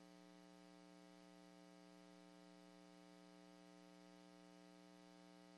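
Near silence with a faint steady hum, cutting off abruptly at the very end.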